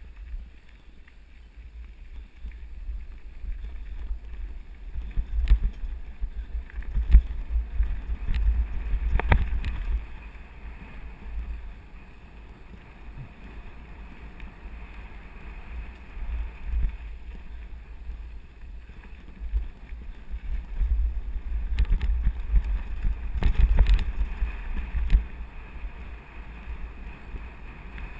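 Wind buffeting the microphone with a heavy, uneven rumble while riding fast down a gravel forest road on a mountain bike, with scattered sharp knocks and rattles as the bike goes over bumps, the busiest stretches around ten seconds in and again near the end.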